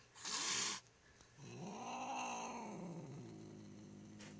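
A long-haired white cat hisses once, then gives a long drawn-out growl that rises and falls in pitch and trails off into a lower steady growl, a defensive warning.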